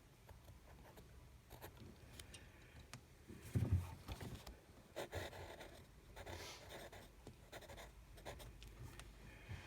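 Quiet scratching strokes of drawing on paper, with one low thump about three and a half seconds in.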